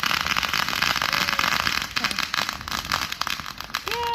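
Fireworks crackling: a dense, rapid run of small pops that goes on without a break. A short falling cry or call starts near the end.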